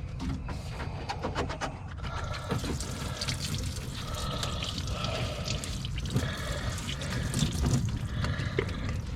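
Engine coolant trickling and dripping from the disconnected upper radiator hose into a bucket, a steady liquid patter with small clicks throughout.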